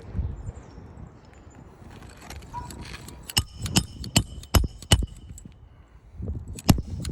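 Hammer driving new 1-inch roofing nails to fasten a replacement shingle: a quick run of five ringing metal strikes a little over three seconds in, then one more near the end.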